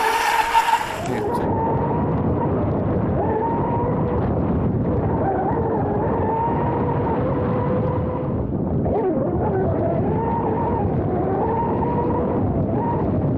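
Electric brushless outboard of an RC F1 tunnel boat whining at speed, its pitch rising and falling with the throttle, over water rushing against the hull. About a second in the sound turns muffled and dull, as heard from a camera mounted on the boat.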